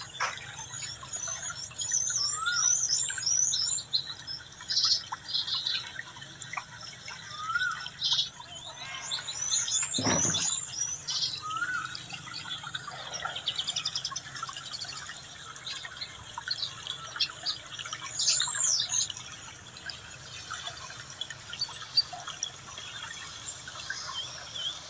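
Small birds chirping in quick, high-pitched twittering phrases, with a few short rising whistled notes lower down. There is a brief thump about ten seconds in.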